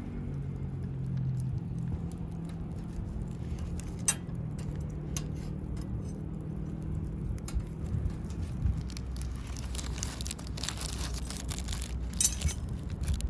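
Scattered light clinks and taps, like small hard objects being handled, over a low steady hum. The clicks grow thicker over the last few seconds.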